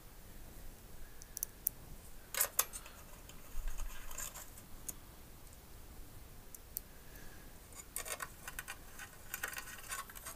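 Small screws and a screwdriver clicking and clinking against the metal cover plate of a filter wheel as it is screwed back together. Scattered clicks come singly and in quick little clusters, the loudest a pair about two and a half seconds in.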